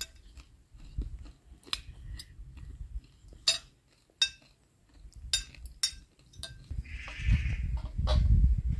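Spoons clinking against glass plates during a meal. Near the end a louder low rumble and a short animal call.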